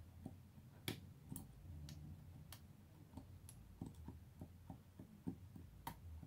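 Faint, scattered clicks and ticks of a disc-detainer lock pick being turned in a disc-detainer lock cylinder, the discs being worked one by one; the sharpest click comes near the end.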